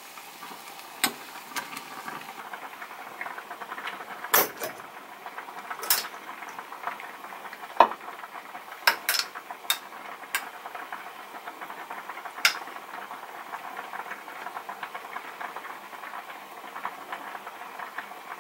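Kitchen sounds under a steady hiss: a metal spoon clinking against a stainless steel pot of boiling soup, then a small ceramic bowl and a glass pickle jar being handled on the counter, with scattered sharp clinks.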